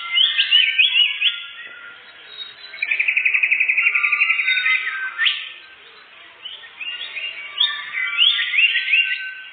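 Songbird singing: a run of quick rising whistles, then a fast, even trill lasting about two seconds, then more rising whistled phrases.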